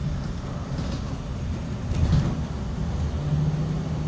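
A 2018 Blue Bird Vision school bus under way, heard from inside the cabin: a steady low engine drone with road noise, and a brief louder clatter about two seconds in.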